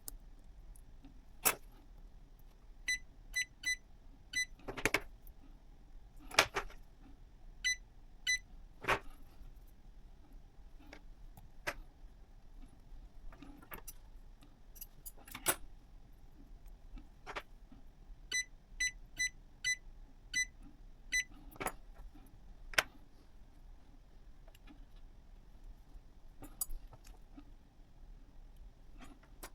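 Short, high electronic beeps coming in quick groups, among scattered sharp clicks and knocks of small hard parts being handled.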